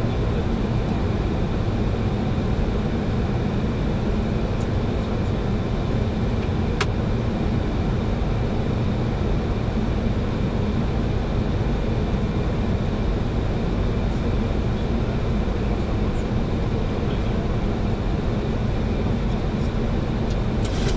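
Steady flight-deck noise of a Boeing 737-800 in descent: airflow over the nose and windscreen mixed with engine noise, even and low-pitched throughout. One faint click about seven seconds in.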